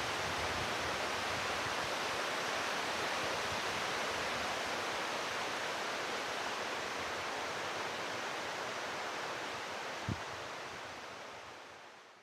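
Steady rush of water, fading out near the end, with one short soft thump about ten seconds in.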